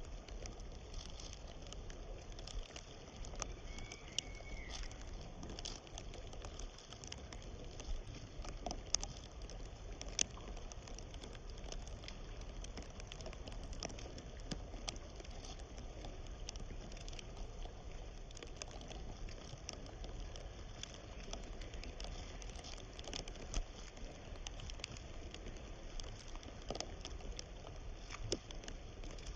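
Small river's water running and pattering steadily, with scattered faint crackling clicks. A single short whistle-like note sounds about four seconds in.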